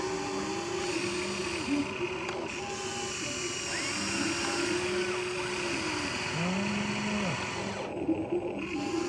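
Small electric motors of a remote-control toy excavator whirring, their pitch rising and falling several times as it works.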